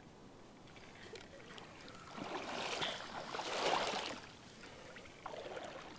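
Splashing of legs wading through shallow water. It swells about two seconds in and fades away after about four and a half seconds.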